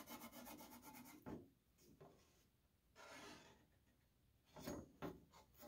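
Faint scratching of a pen drawing lines on a paper template, with a few light rustles, in near quiet.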